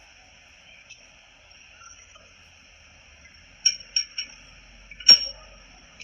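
Hard objects clinking: three quick sharp clinks, then a louder knock about a second later, over a steady high buzz.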